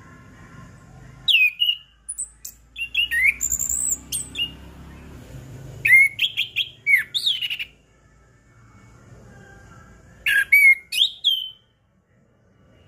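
Chestnut-capped thrush (anis kembang) singing: four bursts of quick, sliding whistled notes, some rising very high, with pauses of a second or two between them.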